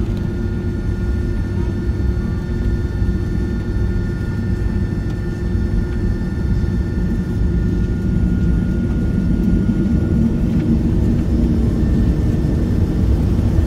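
Airliner cabin noise during taxi: the jet engines hum steadily, with a few thin whining tones over a dense low rumble, growing a little louder in the second half.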